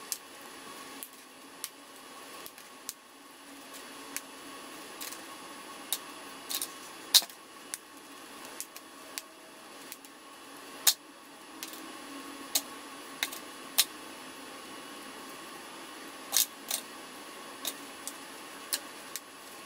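Metal pin curl and duckbill hair clips clicking as they are unclipped and taken out of set hair: sharp, irregular clicks, about one a second, over a faint steady hum.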